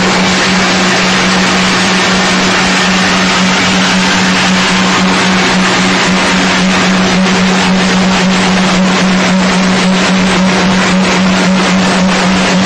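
Corn puff snack extruder running: a loud steady machine hum with one strong low tone, over a constant hiss. From about halfway on, quick light ticks sound as puffed pieces drop into the steel catch tray.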